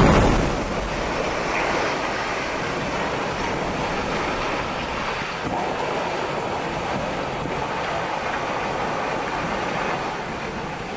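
A large factory building coming down after an explosive demolition blast: a long, steady roar of noise from the collapse and falling debris. It is loudest at the start and fades out near the end.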